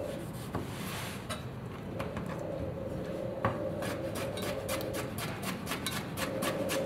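Chef's knife slicing a pickled cucumber on a plastic cutting board: sharp taps of the blade on the board, a few at first, then a quicker steady run of about three chops a second as the pickle is cut into pieces.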